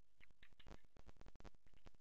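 A rapid, irregular run of faint clicks, roughly seven or eight a second.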